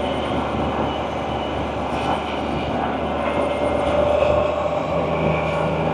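Can-Am Spyder three-wheeled motorcycle running steadily on the road, its engine drone mixed with continuous wind and road noise.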